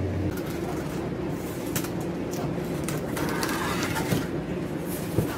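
Hands working on a taped cardboard shipping box: scattered light scrapes, taps and rustles of cardboard over a steady low hum.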